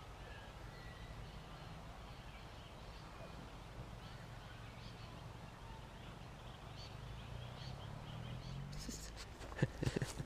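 Quiet outdoor ambience with scattered faint bird calls over a low steady hum. Near the end comes a short burst of rustling and a few sharp knocks.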